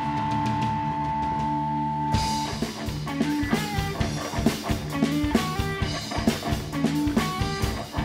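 Rock band playing an instrumental passage on guitar and drums, without vocals. Held notes ring for about two seconds, then give way to a busier run of quick, changing notes over a steady drum beat.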